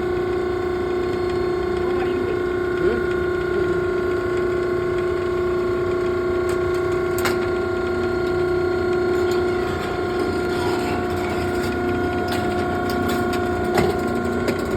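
Cardboard baler's motor running with a steady hum, its tone shifting lower about ten seconds in, with a few sharp metallic clicks and knocks.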